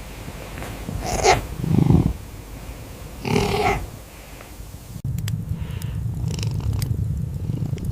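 Kitten purring, a low steady rumble that grows louder about five seconds in, with faint clicks over it. Two brief, louder sounds come in the first half.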